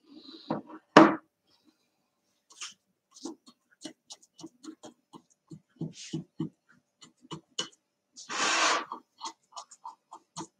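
A plate of biscuit-crumb-covered cake handled on a wooden table: a sharp knock about a second in, then scattered light taps and knocks as hands pat and press crumbs onto the cake's sides, with a brief scraping rustle about eight seconds in.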